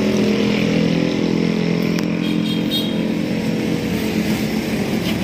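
An engine running steadily at idle, with a sharp click about two seconds in.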